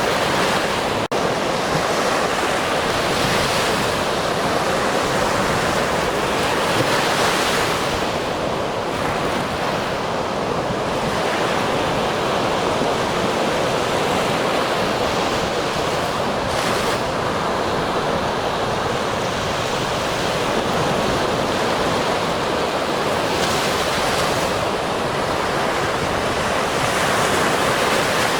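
Ocean surf breaking steadily, a continuous wash of water with waves surging every few seconds. A brief dropout about a second in.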